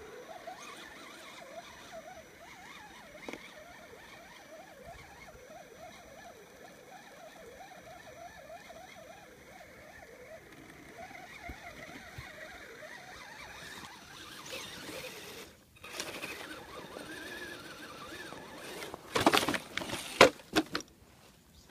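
Faint whine of an RC crawler's Tekin T8 2650kv brushless motor, rising and falling as it is throttled over rocks and logs. Near the end, several loud sudden rustles and bumps, the loudest sounds here, as the camera is handled and swung about.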